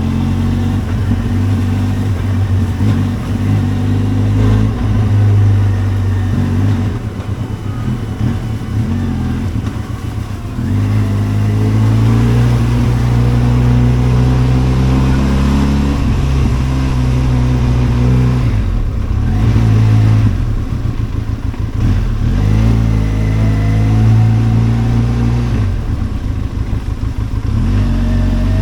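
Benelli TRK 502X motorcycle's parallel-twin engine running while ridden, the revs dropping and climbing again several times with gear changes and throttle.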